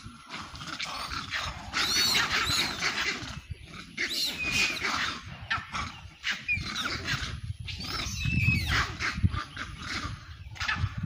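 Monkeys screaming during a fight: a string of shrill, high-pitched calls one after another, loudest about two seconds in and again near the middle and toward the end.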